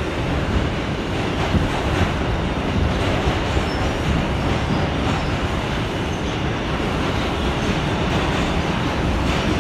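Inside a moving R142 subway car: the steady rumble of the train running on the rails, with a couple of faint clacks from the track.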